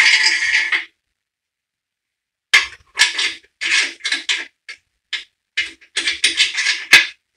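Metal main bearing caps clinking and clanging as they are dropped one after another onto the engine block's main studs and saddles, without the crankshaft in. A cluster of clinks right at the start, then a quick run of them from about two and a half seconds in, the sharpest just before the end.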